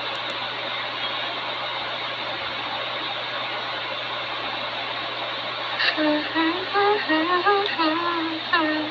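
Steady rushing background noise with a low hum. About six seconds in, a woman's voice sings a short phrase of a few stepping notes for about three seconds.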